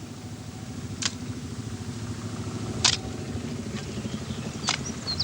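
A motor engine running with a steady low rumble, with a sharp click or scrape about every two seconds. Birds start chirping near the end.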